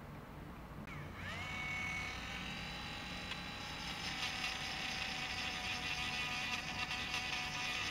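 Handheld electric mini rotary tool spinning up with a rising whine about a second in, then running at a steady pitch. From about four seconds in a grinding hiss joins as the bit works a small part, smoothing off a sharp edge.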